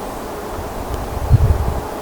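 Steady outdoor rushing noise with wind buffeting the microphone, a low rumbling gust about a second in.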